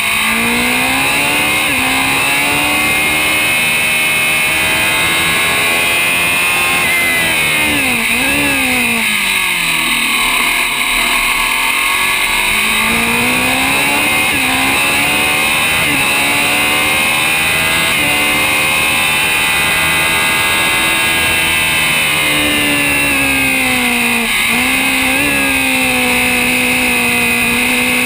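Historic Grand Prix open-wheel race car's engine heard from on board, lapping at speed: the engine note climbs through the gears under acceleration, falls and jerks up and down on downshifts about eight seconds in and again near twenty-four seconds, then climbs again.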